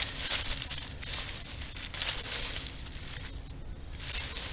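Hand scrabbling through soybean straw, stalks, chaff and dry leaves left behind a combine, a rustling, crackling sound with a brief lull near the end. The residue is green and wet.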